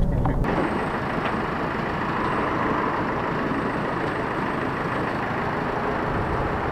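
Steady street noise of motor vehicles, a truck's engine running among passing traffic, starting about half a second in.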